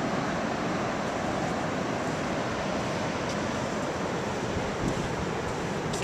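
Ocean surf, a steady wash of noise, with wind buffeting the microphone.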